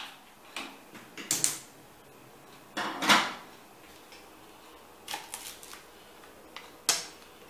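Kitchen handling noises: a pan knocked about on a gas stove and a knife cutting a leek on a plastic cutting board, heard as separate sharp clacks and knocks at uneven spacing, the loudest about three seconds in.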